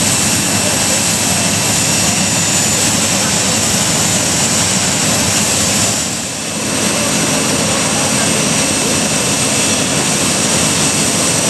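Loud, steady rushing cabin noise inside an Airbus A380 prototype, with indistinct voices mixed in. It dips briefly about six seconds in.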